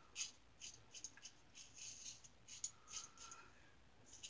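Star Super Six single-edge safety razor with a Gem blade scraping through lathered stubble in short, quick strokes, about two to three a second, faint.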